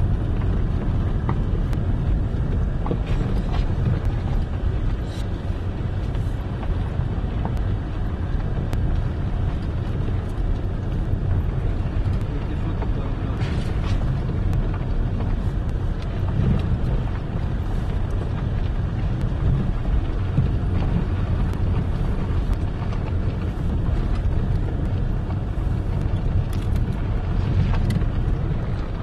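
Car driving along an uneven, potholed dirt road, heard from inside the cabin: a steady low rumble of engine and tyres, with scattered knocks and rattles as the car goes over the bumps.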